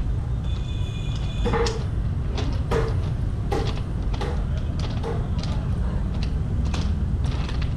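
Footsteps of someone walking along the gravel beside a railway track, about one step every three-quarters of a second, over a steady low rumble. A brief high-pitched tone sounds about half a second in.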